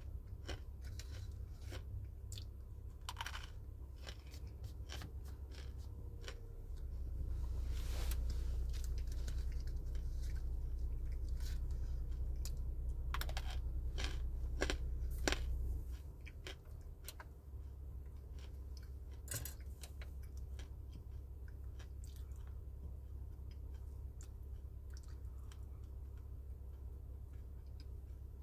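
Hard, dry edible clay balls being bitten and chewed: a string of sharp, crisp crunches at irregular intervals. A low rumble swells for several seconds midway.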